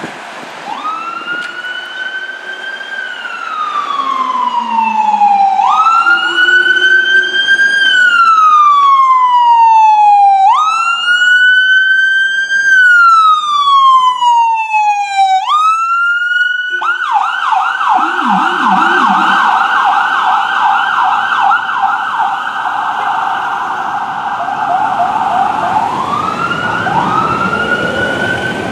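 Fire engine's electronic siren on wail, sweeping up quickly and falling slowly over about five seconds each time. About two-thirds of the way through it switches to a fast yelp for several seconds, then goes back to wail near the end.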